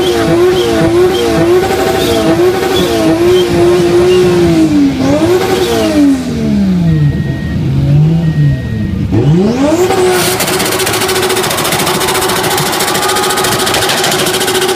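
Drift car's engine revved hard in quick repeated blips, the revs sagging about five seconds in, then climbing again near ten seconds and held high as the rear tyres spin in a smoking burnout.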